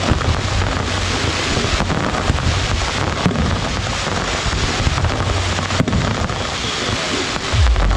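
Fireworks show with ground fountains and aerial shells: a dense, steady crackling hiss over a deep rumble, which swells louder near the end.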